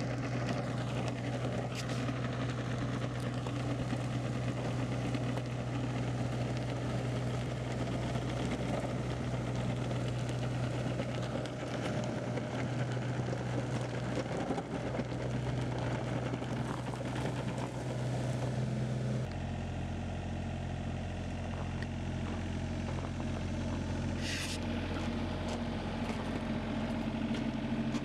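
Case CX36B mini excavator's 28 hp Yanmar diesel engine running steadily. About 19 seconds in its note drops abruptly to a lower pitch and stays there. A brief high squeal comes a few seconds later.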